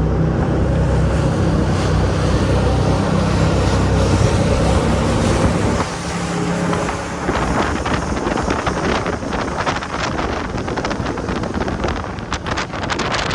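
Jet boat engine running hard under wind rushing over the microphone. About six seconds in the engine sound drops back, and gusty wind and water noise take over, crackling near the end.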